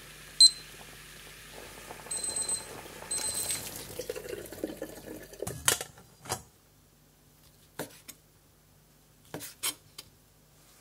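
DRETEC digital kitchen timer beeping: one short beep about half a second in, then two longer beeps about a second apart. A brief rush of water follows, then a few sharp knocks of a knife on a wooden cutting board near the end.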